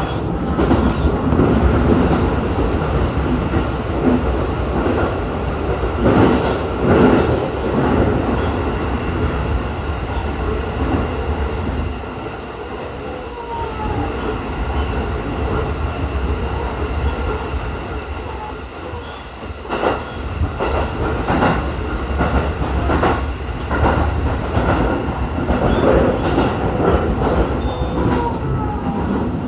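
Electric commuter train running between stations, heard from inside the car: a steady rumble of wheels on rail that eases off for a while midway. A few sharp clacks come in pairs as the wheels cross rail joints, with faint brief squeals from the wheels.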